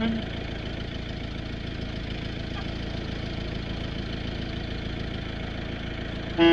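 An engine idling steadily, a low even rumble. A trumpet note breaks off right at the start, and the trumpet comes in again near the end.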